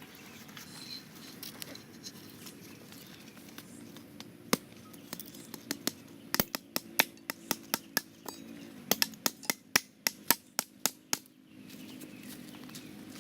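A quick run of sharp clicks or knocks, about three to four a second, starting about four seconds in and stopping near the end, over a faint steady hum.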